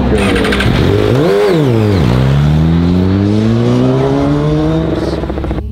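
Suzuki GSX-R1000 endurance race bike's inline-four engine pulling away from a pit stop: a quick rev rising and falling about a second in, then the engine note climbing steadily for about three seconds as it accelerates.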